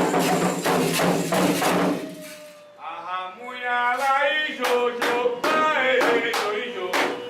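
Candomblé ritual music: atabaque drums and percussion play densely, then drop out about two seconds in. Sung chanting then comes in over sparse sharp strikes, about two a second.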